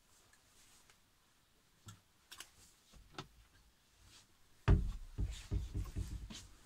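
Clothes on wire hangers being handled and put away: scattered light clicks and ticks, then about five seconds in a run of loud low thumps and rustling as the garment brushes close against the microphone.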